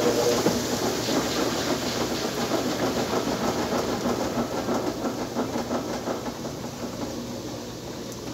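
Top-loading washing machine in its spin cycle, the tub of clothes spinning fast with a dense rattling noise that slowly grows quieter. A humming tone stops about half a second in.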